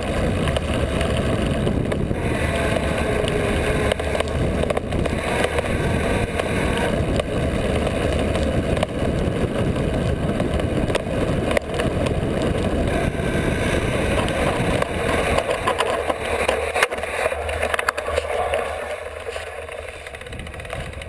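Mountain bike riding over a dirt trail, heard through a body-worn GoPro: a steady rush of wind and tyre rumble with scattered rattling knocks. The low rumble eases off about three quarters of the way through.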